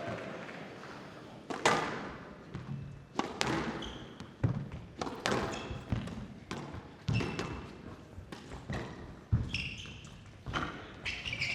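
Squash rally: the rubber ball struck by rackets and smacking off the court walls, a dozen or so sharp hits at an irregular pace, with short high squeaks between them.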